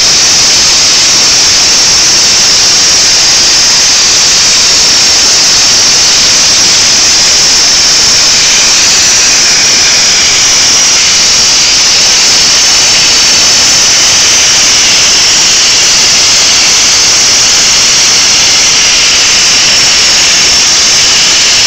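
Plasma cutter's arc and air jet making a loud, steady hiss as it cuts through metal plate.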